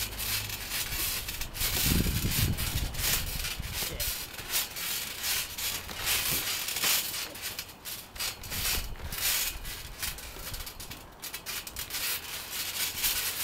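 Rustling, rubbing noise on the camera's microphone that swells and fades unevenly throughout, with a heavier low rumble about two seconds in.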